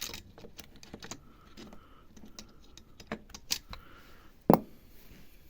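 Scattered light clicks and taps of small jigsaw parts being handled, with one sharper knock about four and a half seconds in.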